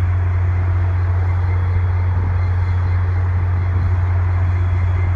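Diesel locomotive of a Via Rail passenger train idling, a steady, unbroken low drone.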